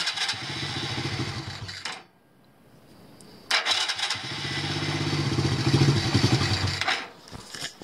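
110 cc ATV engine running on choke, cutting out about two seconds in, then firing up again a second and a half later and running before fading away near the end. It is struggling in the cold, and the owner also suspects it is short of petrol.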